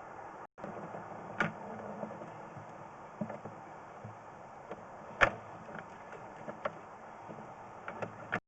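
Sewer inspection camera's push cable and reel being pulled back: a steady rushing noise broken by irregular clicks and knocks, the sharpest about five seconds in.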